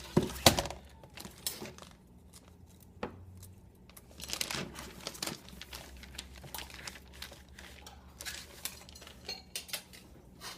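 Handling noise from the packaging of a replacement 15.6-inch laptop LCD panel as it is taken out: scattered crinkles and knocks, with two sharp knocks right at the start.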